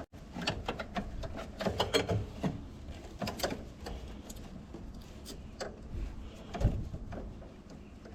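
Irregular metallic clicks and knocks of hand tools at work during a car battery replacement.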